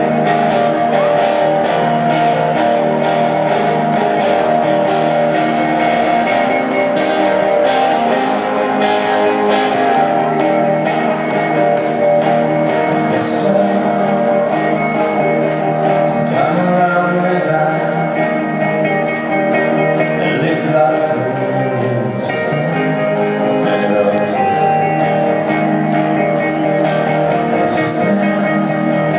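Live rock band playing, with electric guitar to the fore over sustained, steady instrumental parts.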